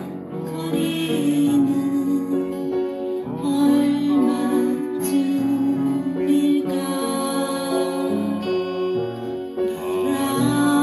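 Upright piano played by ear, melody and chords, together with a recording of acoustic guitar and singing playing along from a phone.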